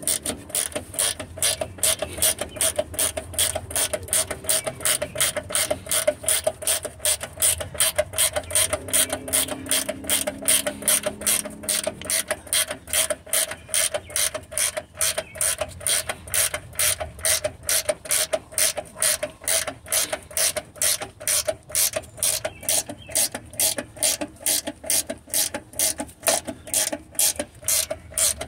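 Flex-head ratcheting wrench clicking steadily, about three clicks a second, as it is worked back and forth on a bolt.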